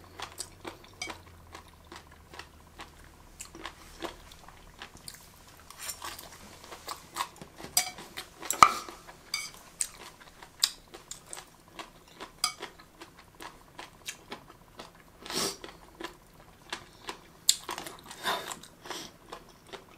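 Close-up chewing of crunchy, gelatinous jellyfish: irregular crunches and wet mouth clicks, with a louder crunch about eight and a half seconds in. Chopsticks now and then click against the plate.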